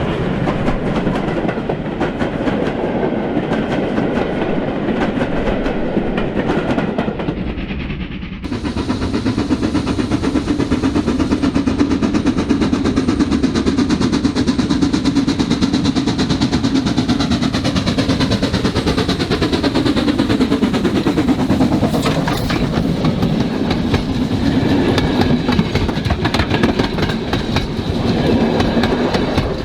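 Model railway locomotive and rolling stock running on track, wheels clicking over rail joints with a steady motor hum. The sound changes abruptly about eight seconds in, then runs on with slowly falling tones.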